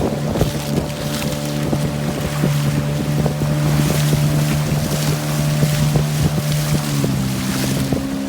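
Small boat's engine running steadily, with wind rushing over the microphone; the engine note shifts slightly about seven seconds in.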